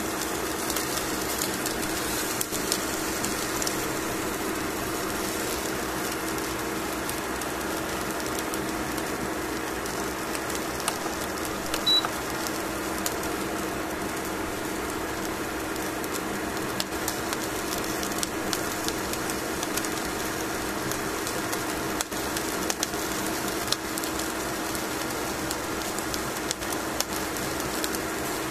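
Salmon fillet sizzling as it grills: a steady hiss speckled with small crackling pops, over a steady low hum.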